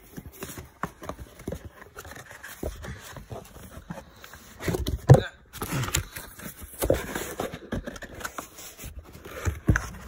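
Cardboard retail box being handled and pried open one-handed to slide a clock radio out: scraping and rustling with irregular taps and knocks, the loudest knock about five seconds in.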